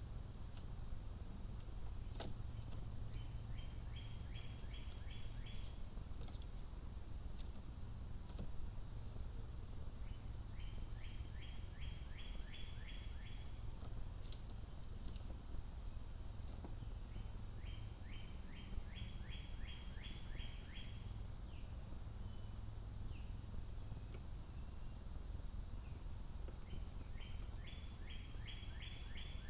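Insects calling: a steady high-pitched trill throughout. About every seven or eight seconds a short run of roughly eight quick notes repeats, over a constant low outdoor rumble.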